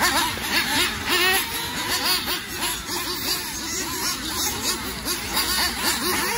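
Several nitro-powered RC buggy engines racing together: a high-pitched whine that rises and falls many times a second as each car revs up on the straights and backs off into the corners, their sweeps overlapping.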